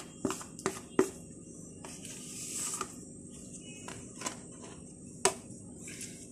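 A metal spoon scraping ground spices off a plate into a glass bowl, with a few sharp clicks and taps of the spoon and a soft scraping hiss about two seconds in.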